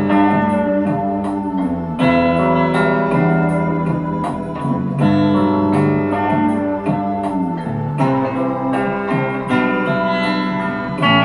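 Instrumental music led by guitar over a steady beat, the chords changing every few seconds.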